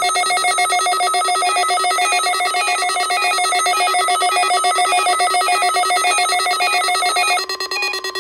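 Weather radio receiver's alert alarm going off for a required weekly test: a loud electronic beeping in a fast, even pulse that shifts pattern about seven seconds in.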